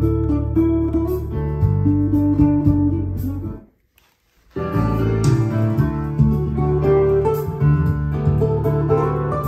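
Recorded music played back from a Sony SCD-XA333ES SACD player over hi-fi loudspeakers. It mutes for just under a second about midway, while the player's digital filter setting is being switched, then resumes.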